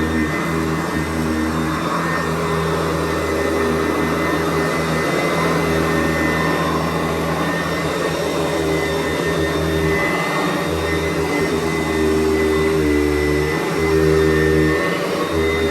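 Sanitaire SC889B upright vacuum cleaner running steadily while vacuuming. Its motor hum wavers and dips now and then as it is worked back and forth.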